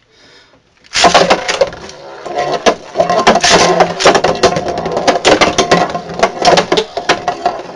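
Two metal-wheeled Beyblade spinning tops, Galaxy Pegasus and Gravity Destroyer, are ripped into a plastic Beystadium about a second in. They then spin with a steady whir and clash again and again with sharp, irregular metallic clacks and rattles against each other and the stadium walls.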